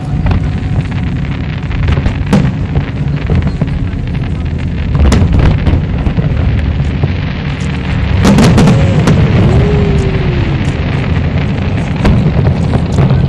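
Fireworks exploding: a run of sharp bangs and crackles over a steady low rumble, with a dense, loud volley of bursts about eight seconds in.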